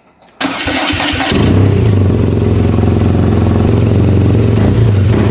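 BMW R nineT's air/oil-cooled boxer twin cranked on its electric starter for about a second, then catching and idling steadily. Its exhaust flapper valve has been removed, which makes it louder at idle.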